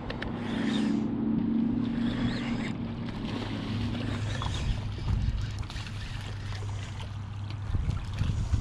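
An engine running steadily with a low hum; its higher tone fades about halfway through and the hum stops near the end.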